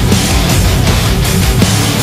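Loud heavy rock music with a steady, driving beat.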